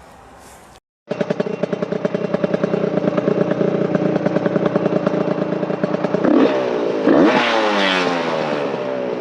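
The engine of a freshly rebuilt vehicle running under way with a steady pulsing beat, cutting in abruptly about a second in. Its revs rise and fall a couple of times near the end.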